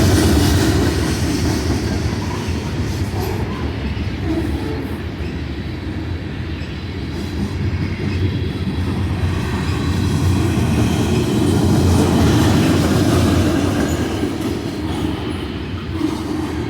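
Union Pacific freight train's cars rolling past at speed: a steady, loud low rumble of steel wheels on rail, swelling slightly partway through.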